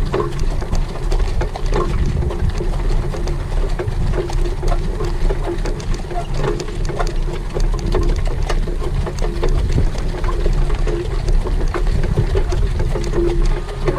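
Wind buffeting the microphone in a loud, steady low rumble while a harness horse and its sulky are in motion, with many irregular clicks and knocks through it.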